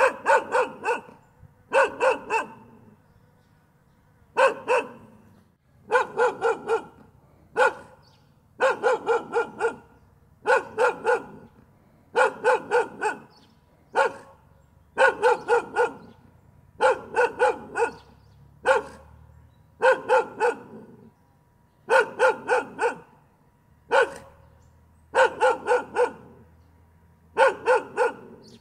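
A dog barking in quick bursts of two to five barks, a burst about every two seconds, over and over.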